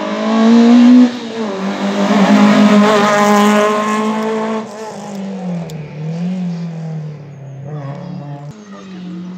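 Racing hatchback's engine revving hard as it accelerates past at full throttle. Its pitch climbs, drops sharply about a second in, climbs again and is loudest in the middle, then dips with gear changes and fades as the car goes away.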